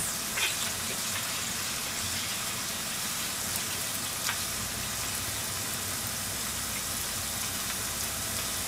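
Pot of water heating on an induction hob, giving a steady hiss as it nears the boil, with a short clink about half a second in and a faint click about four seconds in.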